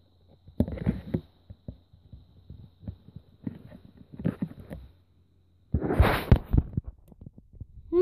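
Phone handling noise: rustling and muffled knocks as the covered phone is moved about, loudest a little before the end. A faint steady high tone from the fire alarm runs beneath it until about halfway through.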